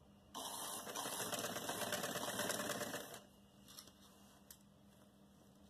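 Sewing machine stitching the sleeve seam into the kurti's armhole: it runs in a fast, even burst of stitches for about three seconds and then stops. A couple of faint clicks follow.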